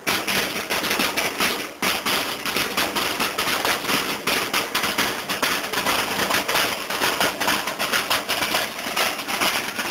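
A marching drum corps' field drums beating a fast, dense march cadence with sticks.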